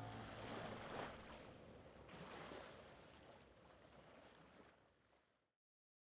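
Faint wash of lake water lapping, fading out and cutting to silence about five and a half seconds in. The last held note of background music dies away in the first second.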